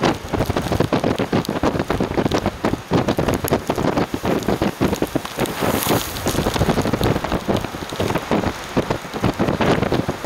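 Windstorm noise: strong gusting wind buffeting the microphone, a loud, rough rushing noise with rapid, irregular surges and no letup.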